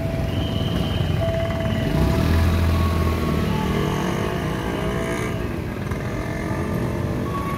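Motorbike and scooter engines running as traffic moves over a level crossing, with one bike passing close and louder about two to three seconds in.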